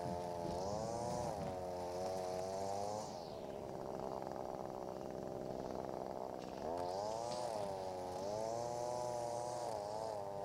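Echo SRM-225 two-stroke string trimmer running at cutting speed, its pitch wavering as the load changes. About three seconds in the engine drops off for a few seconds, which the operator puts down to easing off the throttle trigger, then revs back up.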